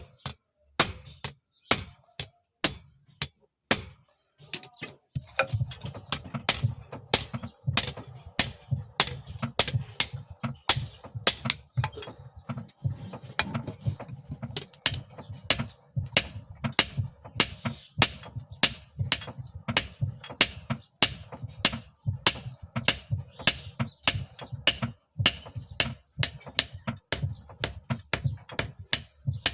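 Hammer blows on the steel of a file being forged into a knife, a regular ringing strike about twice a second. A steady low hum joins about five seconds in.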